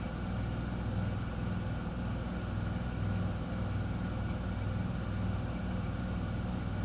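Miele W1 washing machine running its intermediate spin after the main wash: a steady motor hum with a low drone that swells and fades in a regular rhythm.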